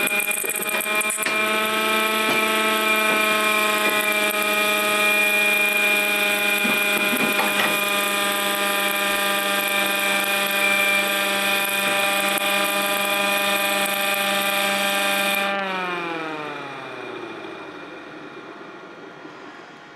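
MiniMite air raid siren sounding a steady, multi-toned wail. Its cracked rotor and split chopper shaft leave the chopper lagging slightly behind the motor. About fifteen seconds in it winds down, the pitch falling away as it fades.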